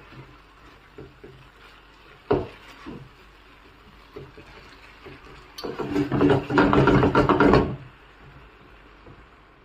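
A spoon knocks once against a cooking vessel, then scrapes rapidly through thick chilli paste for about two seconds, with small taps in between.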